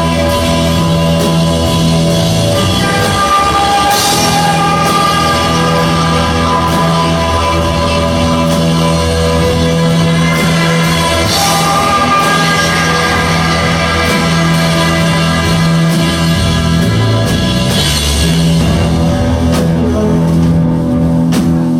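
Krautrock band playing live in a hall: a repetitive driving groove over a steady held bass note, with sustained tones layered above and a crash of high noise about every seven seconds.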